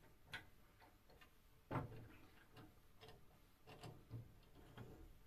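Faint, irregular metal clicks and taps from a drill-chuck key being worked in the chuck of a small bead-making lathe to loosen it; the loudest click comes a little under two seconds in.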